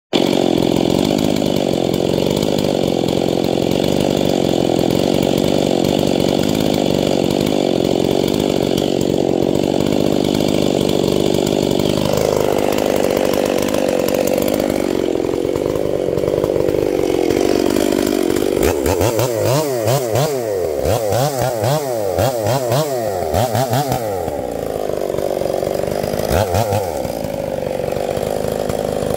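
Ported Stihl chainsaw running at high revs. It holds a steady pitch for about the first twelve seconds, then the pitch drops and wanders. About two-thirds in it is revved up and down about five times in quick succession, with one more short rev near the end.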